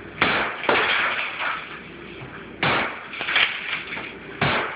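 Sledgehammer blows smashing into something, four sharp crashing hits at uneven intervals, each trailing off in a rattle of debris.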